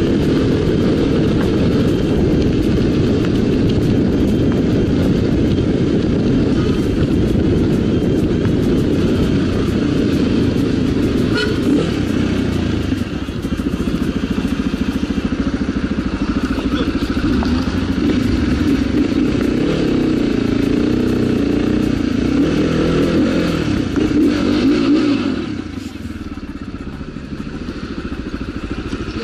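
Mondial RX3i Evo's single-cylinder engine running as the bike is ridden, its note rising and falling with the throttle. The engine sound falls back briefly about halfway through and drops lower near the end as the bike eases off.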